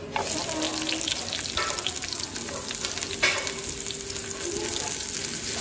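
Sliced red onion hitting hot cooking oil and garlic in a frying pan, setting off a sudden crackling sizzle that carries on steadily as the onion fries.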